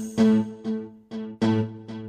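Electronic music: a synthesizer plays a quick run of notes, roughly two a second, each starting sharply and dying away over a steady low note.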